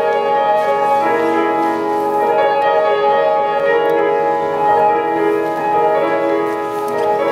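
Grand piano playing a solo introduction, its held notes ringing into one another.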